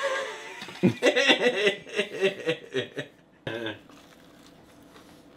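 A man's wordless vocal sounds for about three seconds, stopping shortly before four seconds in.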